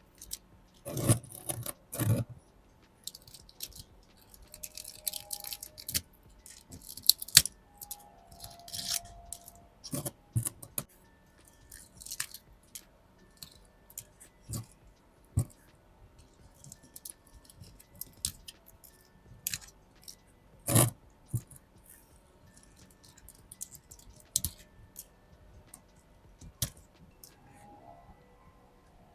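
Hands working on potted succulents: dry old leaves crackling and snapping as they are pulled off, with irregular clicks, knocks and rustles of pots and plant material, some much louder than others.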